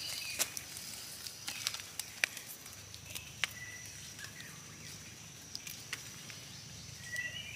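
Scattered small clicks and crackles of wet leaf litter as wild white mushrooms are cut with a knife and lifted by hand. Behind them runs a steady high insect drone, with a couple of short bird chirps, one about three seconds in and one near the end.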